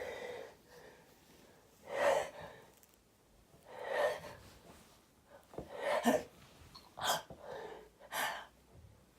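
A person's short, sharp gasping breaths building up to a sneeze, about every two seconds at first and closer together near the end.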